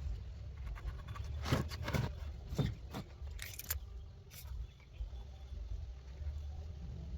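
About six sharp knocks and clicks in quick succession over a steady low hum.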